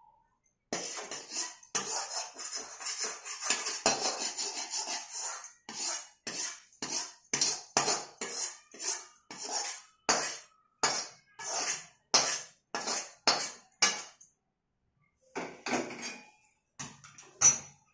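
Steel spoon scraping roasted besan (gram flour) out of a steel kadhai into a steel plate, metal scraping on metal. Continuous scraping for the first five seconds or so, then separate scrapes and knocks about one a second, a short pause, and a few more near the end.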